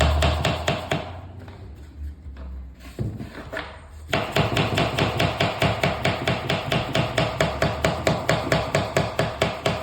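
Rapid, even hammer taps, about five a second, driving a laminate flooring plank into place. The taps turn quieter and sparser for a few seconds about a second in, then pick up again at full strength.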